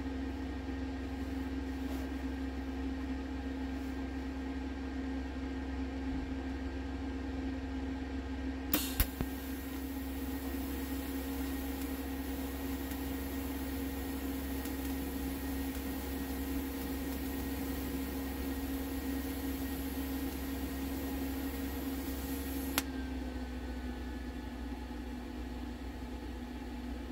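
TIG welder's steady electrical hum. About nine seconds in, the tungsten arc strikes with a sharp crack and a steady hiss runs for about fourteen seconds before cutting off abruptly, leaving the hum as the argon gas post-flow shields the weld.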